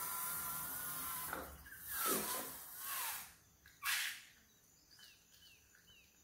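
Cartoon-style sound effects: a held whistling tone and gliding squeaks, two swishes and a sharp hiss about four seconds in, then faint short falling chirps repeating about twice a second near the end.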